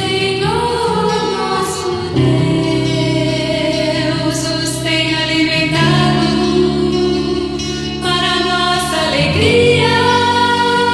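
Gospel music: a vocal group singing long held chords without clear words, the chord changing about every two seconds.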